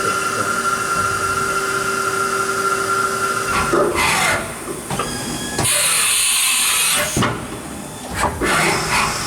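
Haas Super Mini Mill vertical machining center running a program. Its spindle whines steadily, then winds down with a falling pitch a little after three seconds in. A loud hiss of compressed air lasts about a second and a half in the middle, during the change to tool 3, and near the end the spindle spins up again with a rising pitch to a higher speed.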